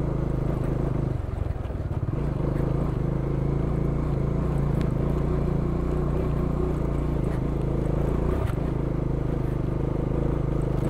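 Bajaj Dominar 400's single-cylinder engine running steadily at low speed under load while climbing a rough gravel track. The engine note dips briefly about a second in and again near eight and a half seconds.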